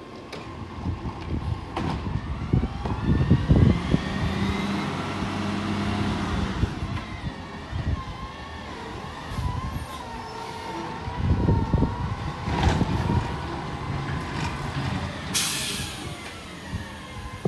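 McNeilus ZR automated side-loader garbage truck on a Crane Carrier LET2 chassis pulling slowly forward, engine running with rising and wavering whines. A short, sharp air-brake hiss comes about fifteen seconds in as the truck stops.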